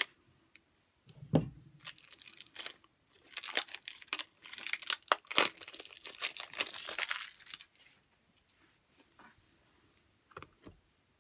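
Clear plastic wrap crinkling and tearing as it is peeled off a stack of paper play money, stopping about eight seconds in. A low thump comes about a second in.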